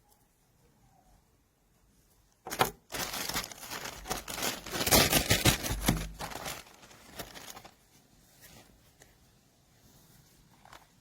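Crinkling, rustling handling noise that starts about two and a half seconds in, grows loudest in the middle and fades after about five seconds.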